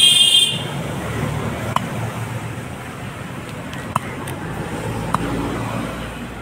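Curved butcher's knife striking a wooden chopping block as chicken is cut: three sharp knocks about a second or two apart, over a steady hum of road traffic. It opens with a short, shrill beep lasting half a second, the loudest sound.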